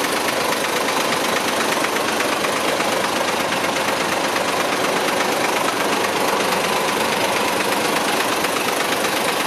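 Diesel engine of a Hino Victor 500 cement mixer truck idling steadily.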